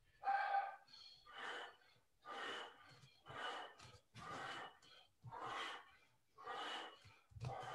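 A man breathing hard and rhythmically while exercising, roughly one breath a second.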